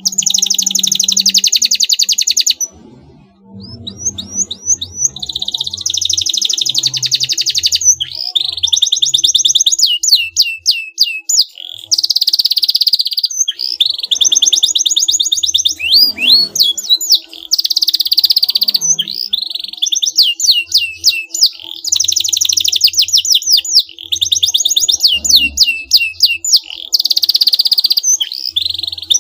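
Domestic canary singing a long, loud song of rapid trills and quick swooping whistles, with a short pause about three seconds in.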